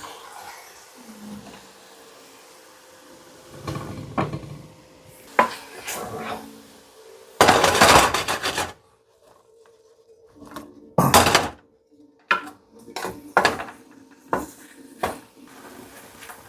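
A cooking utensil scraping and knocking against a frying pan as chopped mushrooms are stirred and tossed, in irregular bursts, the longest a scrape of about a second a little before the middle.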